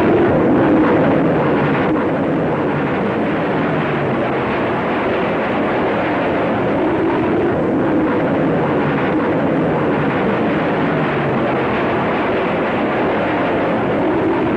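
Steady, engine-like rushing noise from a cartoon soundtrack sound effect, starting suddenly and running on without change.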